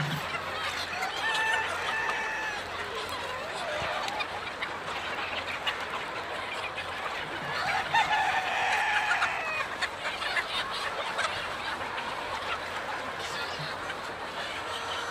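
Chickens clucking and calling in short bursts, with one longer, louder drawn-out call about eight seconds in.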